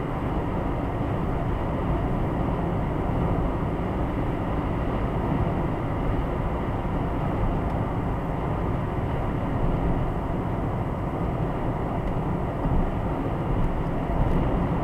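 Steady road noise inside a car's cabin cruising at about 70 mph: tyre rumble, engine drone and wind, holding even throughout.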